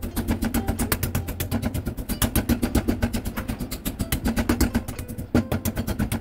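Meat mallet pounding pork chops through plastic wrap on a plastic cutting board: a fast, steady run of dull knocks, several blows a second.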